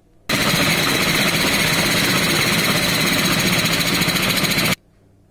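Food processor motor running at speed, its blade mincing coarse-cut carrots; it starts suddenly just after the start and cuts off sharply near the end.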